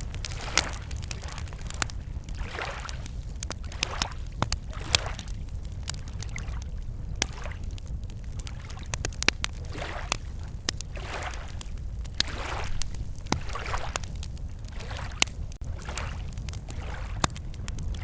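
Wood campfire crackling with many sharp pops, over small lake waves lapping against the shore in soft swells about once a second, with a steady low rumble underneath.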